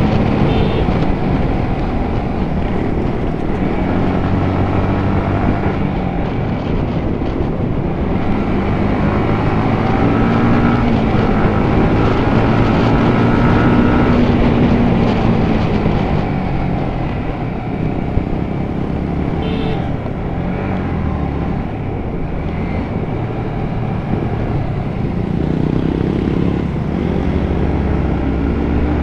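Yamaha MT-15's 155 cc single-cylinder engine under way, its pitch rising and falling again and again as the rider opens and closes the throttle.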